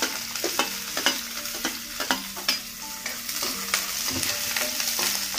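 Finely chopped onion frying in hot oil with spices, sizzling steadily, while a spatula stirs it, scraping and knocking against the pan several times a second.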